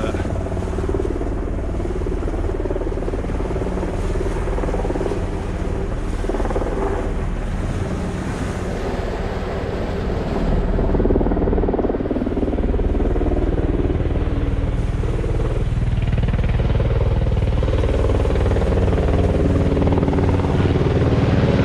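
Helicopter flying low, a steady drone of rotor and engine that grows louder about halfway through.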